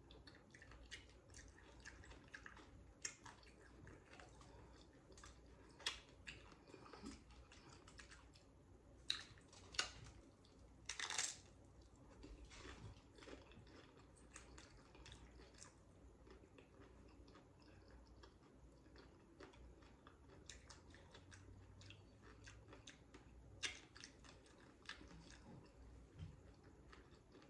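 Faint chewing of loaded nacho chips, with scattered crunches and mouth clicks, the loudest about eleven seconds in.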